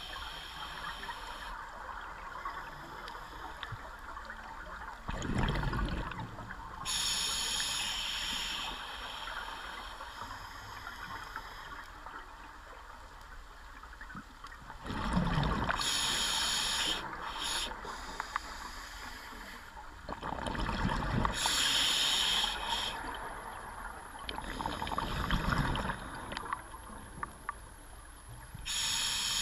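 A scuba diver's regulator breathing underwater: hissing inhalations alternating with bubbling exhalations, in a slow cycle of about four breaths.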